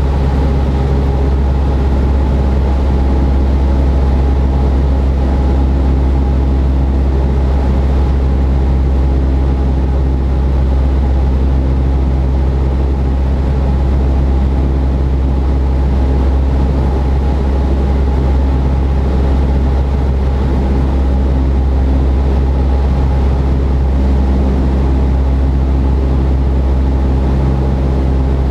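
Cessna 172's piston engine and propeller running steadily in cruise, heard inside the cabin as a constant low drone.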